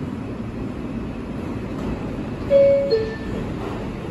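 R142 subway car's door chime: a descending two-note ding-dong about two and a half seconds in, over a steady hum. It warns that the doors are about to close.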